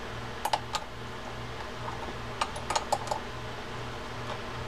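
Light metallic clicks and clinks of a wrench working the handle nut on an Abu Ambassadeur 7001i baitcasting reel as it is tightened: two about half a second in, and a quick cluster around three seconds. A low hum pulses steadily underneath.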